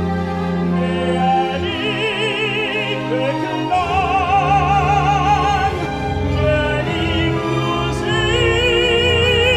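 Operatic tenor voice singing long held notes with strong vibrato over orchestral accompaniment, with steady low sustained notes beneath.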